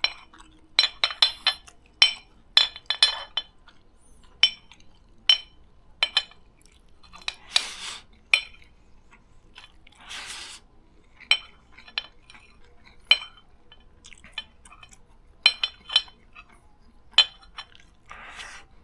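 A spoon clinking and scraping against a dish while fried rice is eaten: irregular short ringing taps, some in quick clusters, with a couple of longer scrapes partway through.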